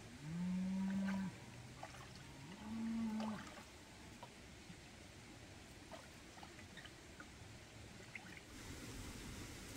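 A cow mooing twice, two low, steady calls of about a second each, the second a little higher.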